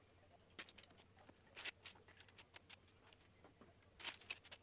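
Plastic Lego bricks clicking and rattling as loose pieces are picked up and pressed together by hand: faint, scattered small clicks, with short flurries about a second and a half in and near the end.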